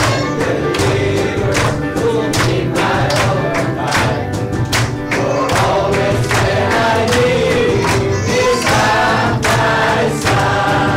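Congregation singing an upbeat worship song together over instrumental accompaniment, with a steady beat of sharp claps.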